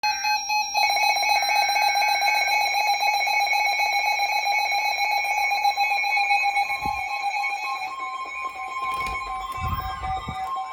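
Emergency Alert System alert: a short burst of warbling data tones, then the steady two-tone EAS attention signal blaring with a fast beating flutter. The signal weakens after about eight seconds, and a few low thumps sound near the end.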